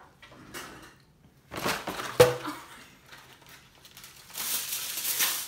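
Mashed potatoes being scraped out of a stainless steel mixing bowl with a silicone spatula and dropping into a serving bowl: soft scraping and plopping. About two seconds in there is a sharp knock as the spatula strikes the metal bowl, which rings briefly. A longer hissing scrape comes near the end.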